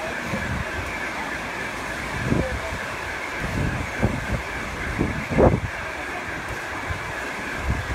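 Wind gusting against the phone's microphone, a few deep rumbles in the middle and the loudest about five seconds in, over a steady hiss of rain on a flooded street.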